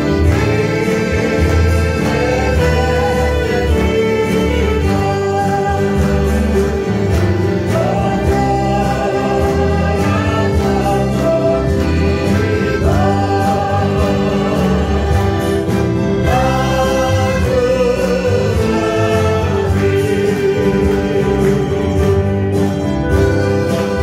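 Live worship song played by a small band of saxophone, accordion and guitars, with singing over it.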